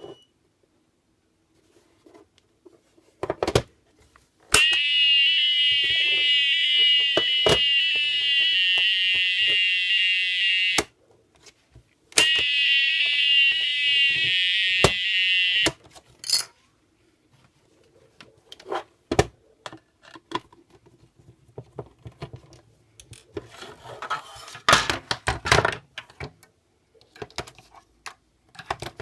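A battery-powered type 4 fire alarm under test sounds a loud, rapidly warbling alarm tone for about six seconds. It stops briefly, then sounds again for about three and a half seconds. Clicks and handling knocks come before and after the alarm bursts.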